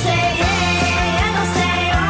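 Rock band music: a steady drum beat and bass under a wavering, bending melody line.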